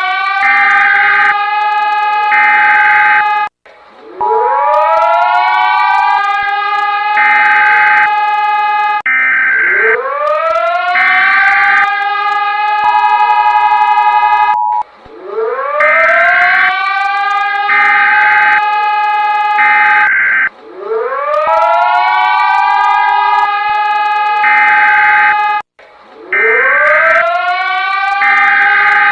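Mock Emergency Alert System audio: a siren winds up and holds its pitch, then cuts off and starts again, about every five and a half seconds. Over it come short buzzing data bursts like a SAME alert header and, in some repeats, the steady two-tone EAS attention signal.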